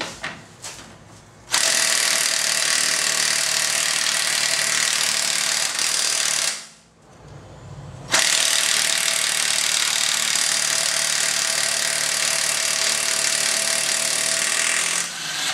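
Chicago Electric 18-volt cordless impact wrench hammering on a lug nut torqued to 140 foot-pounds, in two long runs of about five and seven seconds with a short pause between. The nut is at the top of the gun's range and takes this long hammering to break loose.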